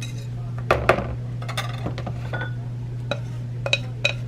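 A utensil clinking and scraping against a bowl as raw lemon curd mixture is transferred into a microwave container: a few sharp clinks, the loudest about a second in, over a steady low hum.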